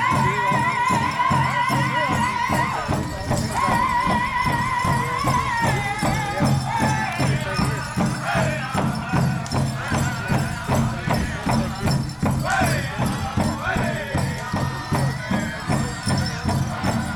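Powwow drum group singing in high, wavering voices over a large drum struck with a steady beat.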